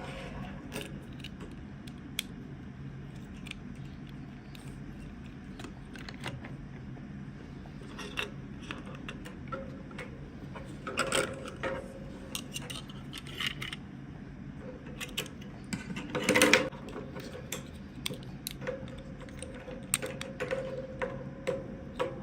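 Small plastic toy pieces and packaging being handled: scattered light clicks and rattles, with louder clattering about 11 and 16 seconds in, over a steady low hum.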